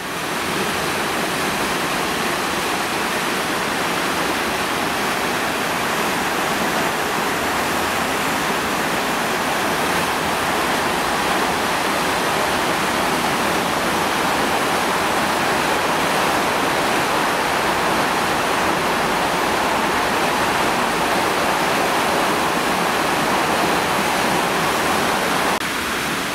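A river in spate after heavy rain, brown floodwater rushing through the arches of a stone bridge and churning white around its piers: a loud, steady roar of water. It drops a little about a second before the end.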